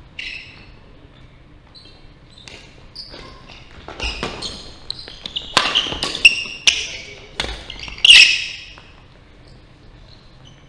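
Badminton doubles rally: sharp racket strikes on the shuttlecock mixed with short high squeaks of court shoes on the wooden floor, in a large echoing hall. The exchanges come thick and fast from about four seconds in, with the loudest squeal just after eight seconds, then die away as the point ends.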